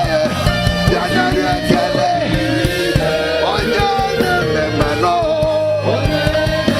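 Live church worship music: singing voices carrying a gliding melody over a band with bass and drums keeping a steady beat.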